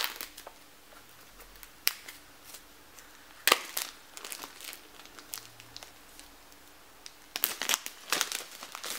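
Plastic wrapping crinkling and tearing as it is cut and pulled off a new iPhone 5s box: uneven crackles, with a sharp rip about three and a half seconds in and a cluster of crackles near the end.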